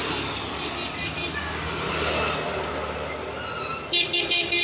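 Street traffic noise, then near the end a vehicle horn beeps in a rapid series of short blasts.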